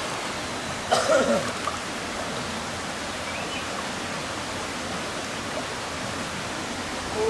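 Steady rush of flowing river water, with a brief shout from a person about a second in.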